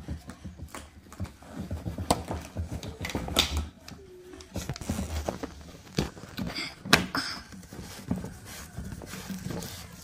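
Handling noise from a Henry vacuum cleaner's metal wand and hose as the hose end is pushed into the vacuum's front socket: irregular clicks and knocks over a low rustle, the sharpest knocks about two, three and a half, six and seven seconds in.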